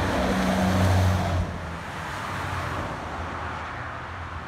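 Deep, steady diesel engine drone of a long-hood dump truck passing close by, ending abruptly about a second and a half in as it goes out of hearing, leaving steady highway traffic and tyre noise.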